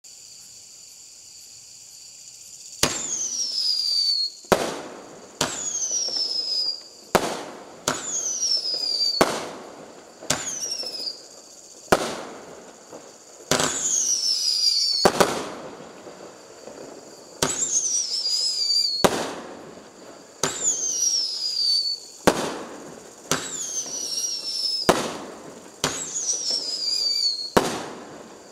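A 20-shot, 500 g firework cake ('Making a Murderer') firing, starting about three seconds in. Each shot is a sharp bang followed by a whistle falling in pitch for about a second, then another bang, about ten shots a couple of seconds apart.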